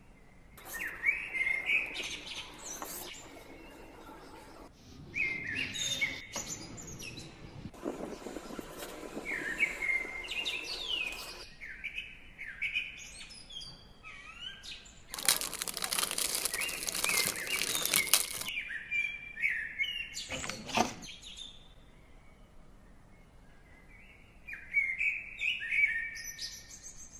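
Small birds chirping in short clusters of quick notes, recurring every few seconds with pauses between; a few seconds of loud noise about two-thirds of the way through.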